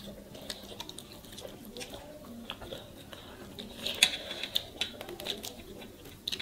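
Eating by hand: small wet clicks and smacks from fingers mixing rice and picking at fish on plates, and from chewing, with a few sharper clicks about four seconds in.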